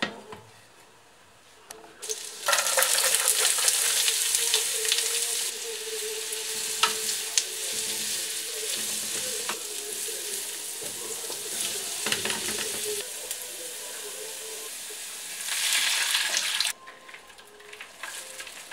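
Chopped onion frying in butter in a nonstick pan, sizzling with a loud hiss and stirred with a wooden spatula that gives small scraping clicks. The sizzle starts suddenly about two seconds in, eases a little, swells again near the end and then cuts off sharply.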